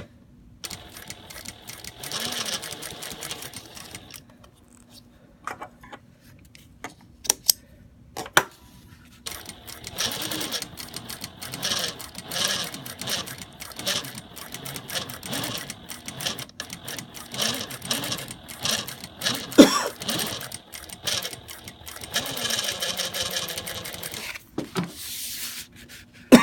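Juki DLN-415 industrial sewing machine sewing in stretches: a short run, a pause with a few clicks, then a long run. It carries a whine from inside the machine head around the stitch-length dial and feed control lever, heard at mid sewing speed and not from the servo motor or a belt.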